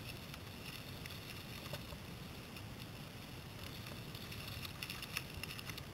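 Mountain bikes rolling past on a loose gravel dirt track: tyres crunching over stones, with scattered sharp clicks and a cluster of them about five seconds in.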